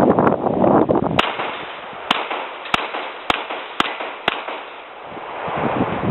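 Six quick shots from a 9mm Glock 19 pistol with a non-ported Storm Lake aftermarket barrel, about half a second apart, starting about a second in. Wind buffets the microphone before and after the string.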